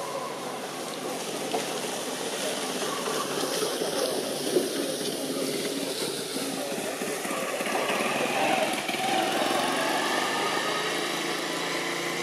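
Engine noise of passing motor vehicles, a steady hum that swells about eight seconds in.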